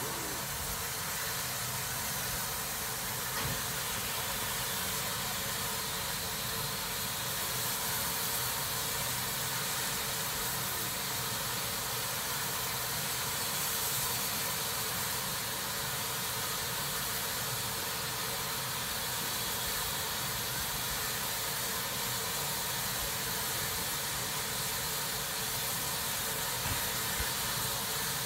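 Standing steam locomotive letting off steam: a steady hiss that neither rises nor falls, with no exhaust beats.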